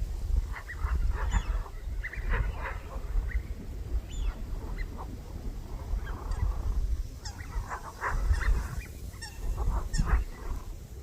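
Several birds calling in overlapping clusters of short, harsh calls, over a steady low rumble.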